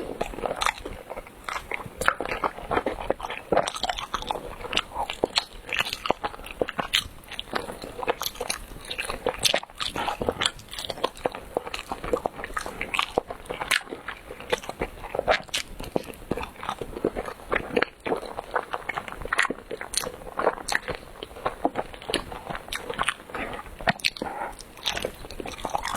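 Close-up chewing of chewy rice cake, a steady run of quick mouth clicks and smacks.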